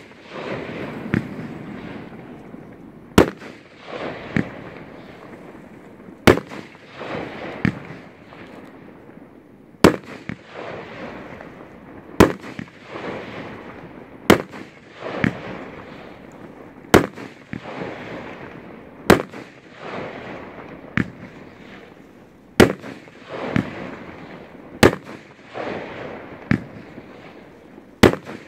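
Fireworks display: a sharp bang every two to three seconds, with smaller pops between them, each bang followed by about a second of noisy tail.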